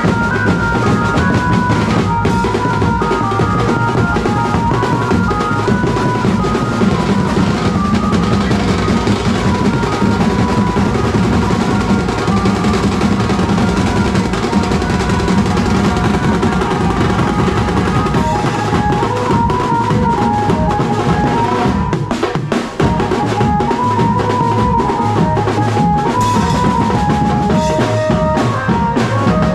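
Mumbai banjo band playing a procession beat: dense, fast drumming on bass drums, toms and snare, with a stepped melody of held notes over it from the band's amplified lead through horn loudspeakers. The drumming drops out for a moment about two-thirds of the way through, then comes straight back.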